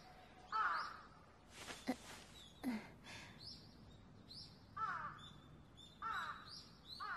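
Crows cawing, a few separate calls spaced a second or more apart, with small birds chirping faintly.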